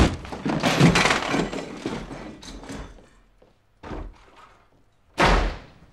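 A loud clatter of things being knocked about, dying away over a couple of seconds, then a short thud about four seconds in and a hard door slam near the end.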